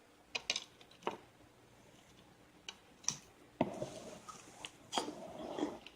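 Scattered light clicks and taps, about one a second, with soft rustling in the second half: wafer biscuits being handled and set down on a table.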